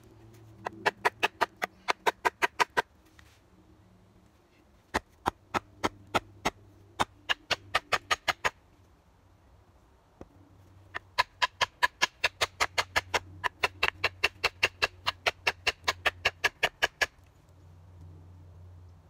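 Rapid wooden knocks, about four to five a second in three runs, from a branch baton striking a hatchet's new green-wood handle to drive the head onto it.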